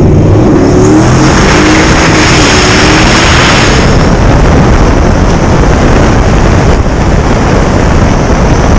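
Twin-turbocharged 5.0 Coyote V8 of a Ford F-150 accelerating, its engine pitch rising over the first few seconds with a high turbo whistle. After that the noise stays loud and steady, heavy wind on the microphone as the truck runs at speed.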